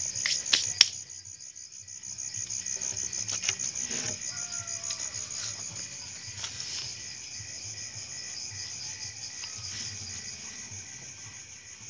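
A steady chorus of night insects such as crickets, a fast pulsing trill, with a few sharp clicks in the first second.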